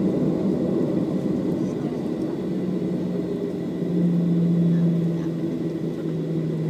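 Cabin noise of a Boeing 737-700 rolling along the runway: a steady dense rumble of its CFM56 engines and wheels, with a steady low hum coming in a couple of seconds in and swelling slightly near the middle.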